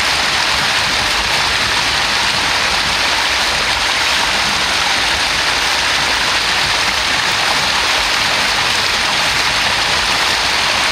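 Spring water spilling over a low rock ledge out of a pool in a small cascade: a steady, even rush of running water.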